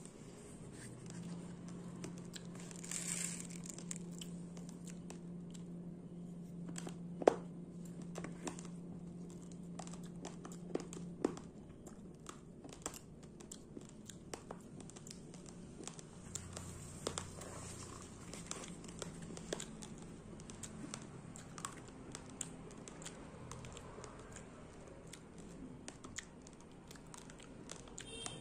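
Raw rice grains being crunched between the teeth: a scattered run of small sharp cracks and clicks, with one louder crack about seven seconds in. A faint low hum runs under the first ten seconds or so.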